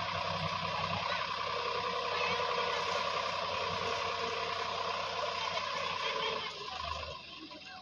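Sonalika DI 750 tractor running with its hydraulics working, a steady whine over the engine, until the sound drops off sharply about six and a half seconds in.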